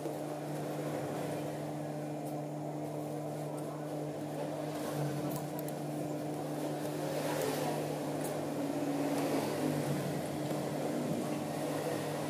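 Sewing machine running with a steady electric motor hum while it stitches denim, a little louder and rougher around the middle.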